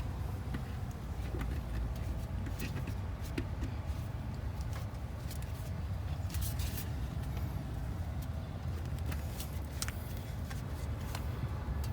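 Scattered sharp clicks and light knocks of parts and tools being handled during reassembly in an engine bay, over a steady low rumble.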